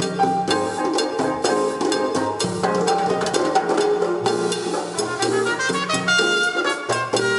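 Recorded music with brass and a drum kit, in a jazzy style, played through a pair of Dynaco A25 loudspeakers driven by a McIntosh MC-2105 power amplifier and a Luxkit A-3300 tube preamplifier. It plays at a steady level, with a moving bass line under the horns.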